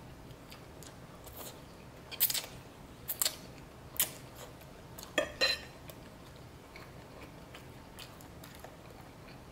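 Close-miked eating of stir-fried noodles: chewing, with a handful of short, sharp wet slurps and mouth smacks clustered between about two and six seconds in.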